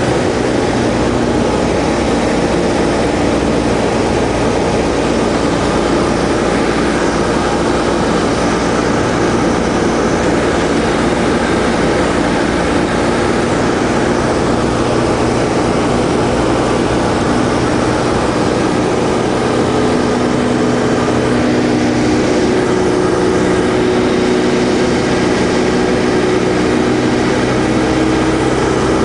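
Cessna 172's piston engine and propeller running steadily, heard as a loud drone inside the cockpit. Its pitch shifts slightly about two-thirds of the way through.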